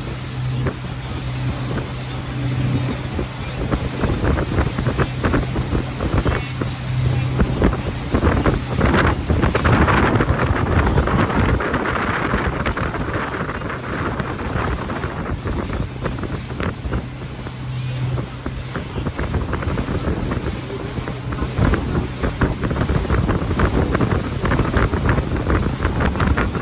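Tour motorboat's engine running with a steady low hum, under heavy wind buffeting on the microphone and water rushing past the hull, swelling louder for a few seconds near the middle.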